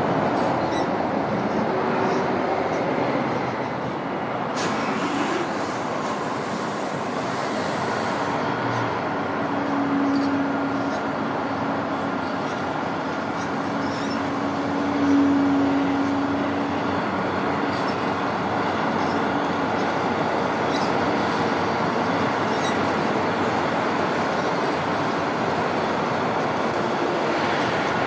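Steady rumble of passing vehicles, with a low hum that comes in about a third of the way through and swells to a peak around the middle.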